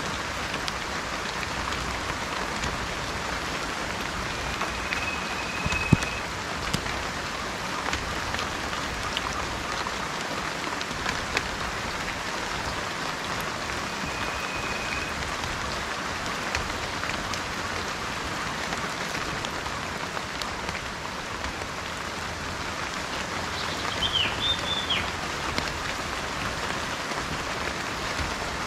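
Steady rain falling, with sharp single drops now and then, the loudest about six seconds in. A bird gives a few short high whistles over it, and a short chirping call comes a few seconds before the end.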